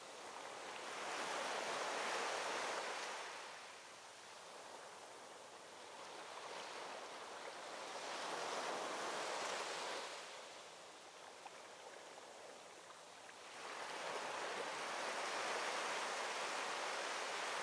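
Ocean waves washing in, the surf swelling and ebbing three times, about seven seconds apart.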